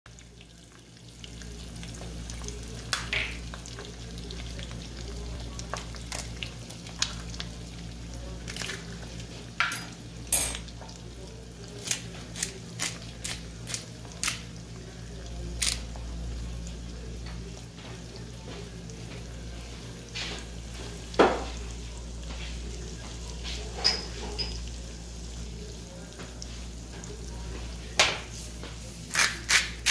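Eggs frying in hot oil in a nonstick pan: a steady sizzle broken by scattered sharp pops of spitting fat. A quick run of clicks comes in near the end.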